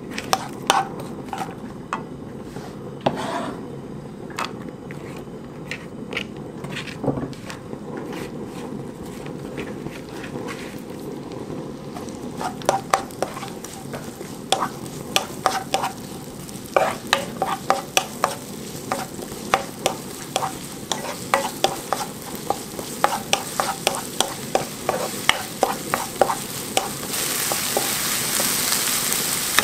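Wooden spoon stirring and knocking against a pan while minced garlic and sliced green onion fry in chili oil, with a steady sizzle underneath. The spoon clicks are few at first and come thick and fast from about halfway on, and the sizzle grows louder near the end.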